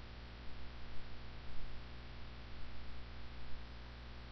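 Faint steady background hiss with a low electrical hum: the recording's noise floor, with no distinct event.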